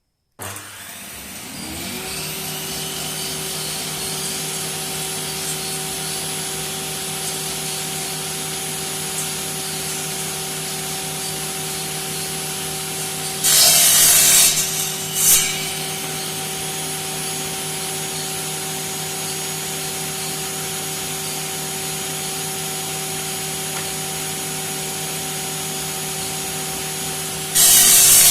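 Electric motor of a homemade twin-blade wall-chasing saw switching on, spinning up over about two seconds and then running steadily with a hum and a high whine. About halfway through and again near the end come loud, harsh, second-long grinding bursts as the blades cut.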